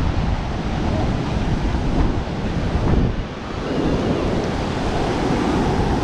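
Atlantic surf breaking on the beach, with wind buffeting the microphone in a heavy low rumble; the noise eases briefly a little after halfway, then builds again.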